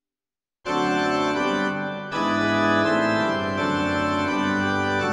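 Yamaha PSR-S670 digital keyboard playing an organ voice: full held chords that start abruptly about half a second in, with the chord changing about two seconds in and again near the end.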